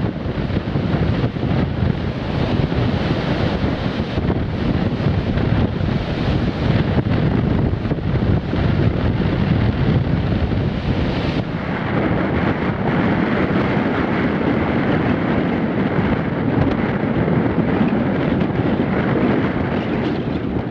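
Strong force 6 wind buffeting the microphone in a loud, steady rush, with surf breaking on the shore underneath. About halfway through the sound changes abruptly, losing some of its hiss.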